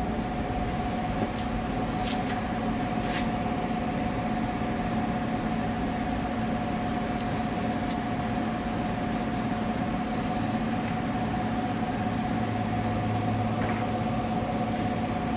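A steady mechanical hum with a constant mid-pitched tone, joined by a few faint light clicks in the first few seconds and again about eight seconds in.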